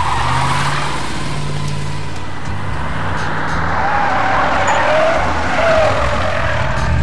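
A car engine running hard as the car speeds away, its tires squealing, with the squeal strongest in the second half.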